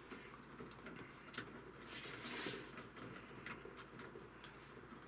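Faint handling of small metal parts as a camera adapter screw and hanger are fitted and screwed together by hand: scattered light clicks and rubbing, with one sharper click about a second and a half in.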